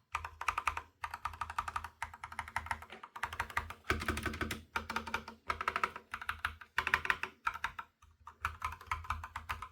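Fast typing on a mechanical keyboard fitted with Akko Crystal Silver U1 linear switches: a dense run of keystroke clacks in bursts with a few brief pauses, a sound called creamy, smooth and nice.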